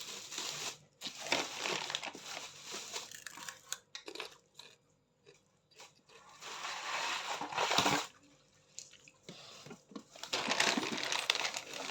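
Packaging crinkling, rustling and crunching as it is handled and opened, in stops and starts with two short pauses.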